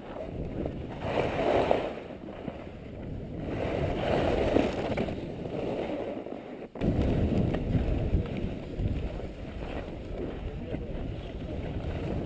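Skis scraping and hissing over packed snow during a fast downhill run, with wind rushing over the microphone; the noise swells and eases with the turns, dips briefly about seven seconds in, and then comes back with a stronger low rumble.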